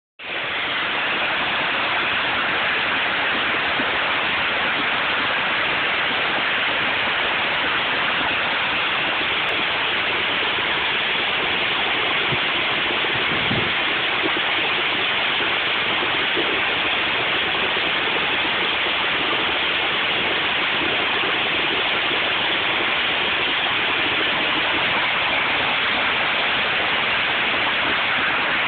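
Swollen floodwater rushing and pouring steadily.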